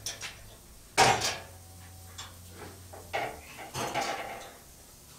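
Heavy steel lid of a Yoder flattop charcoal grill being opened: a sharp loud clunk about a second in, then more metallic clanks with a brief ring about three to four seconds in as the lid swings up and settles.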